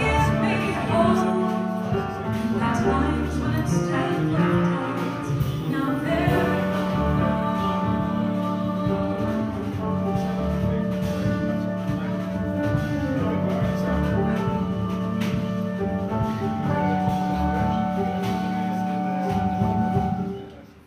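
Small jazz band playing live: a woman singing over a horn section of saxophone, trombone and bass clarinet, with piano, bass and drums, much of it in long held notes. The music stops sharply right at the end.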